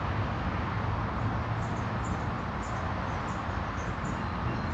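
Outdoor background: a steady low noise with small, high bird chirps scattered through it, several a second at times.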